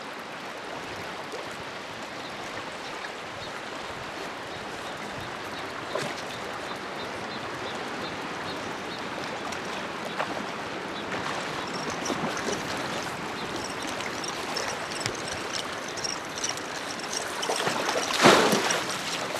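Klickitat River current rushing steadily around a drift boat, with a few light knocks and one brief louder rush of noise near the end.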